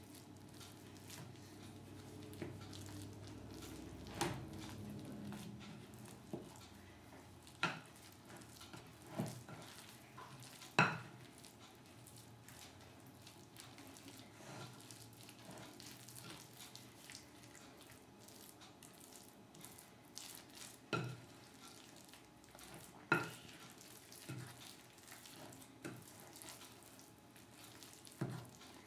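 Zucchini bread batter being mixed by hand in a glass bowl: soft stirring and handling of the flour and wet mix, with occasional sharp knocks and clinks against the glass.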